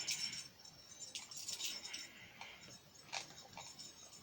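A few faint, scattered light clicks and clinks from handling the animated plush dog toy.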